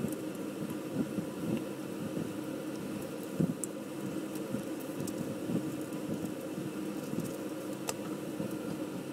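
Steady low mechanical hum, with a few faint clicks of plastic model-car parts being handled and fitted together, one about three and a half seconds in and one near the end.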